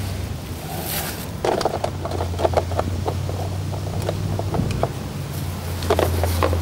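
A steady low engine drone, with a run of light clicks and knocks from about a second and a half in and again near the end.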